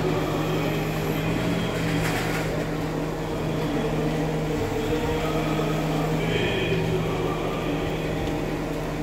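Diesel engine of an IVECO aerial-platform truck running steadily, a constant low hum, keeping the boom's hydraulics powered while the basket is positioned at the pole.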